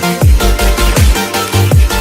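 Electronic dance music with a fast beat: deep kick drums with falling bass sweeps under sustained synth tones.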